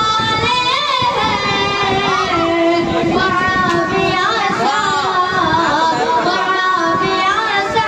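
A boy singing a naat, an Urdu devotional poem in praise of the Prophet, solo into a microphone. His voice is unaccompanied, in long ornamented phrases that waver and bend in pitch.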